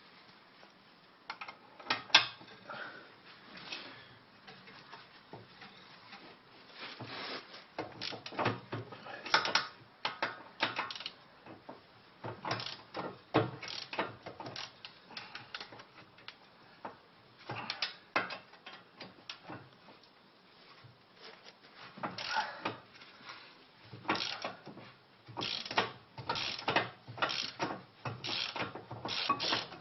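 Ratchet wrench clicking in bursts with short pauses while the brake caliper bracket bolts are worked loose and backed out.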